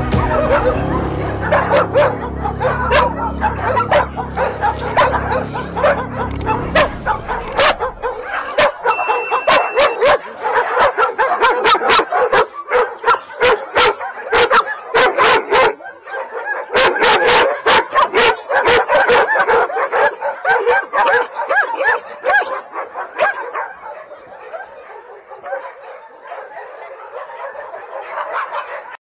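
Many shelter dogs barking and yipping in their pens, with background music underneath; the barking thins out and grows quieter in the last few seconds.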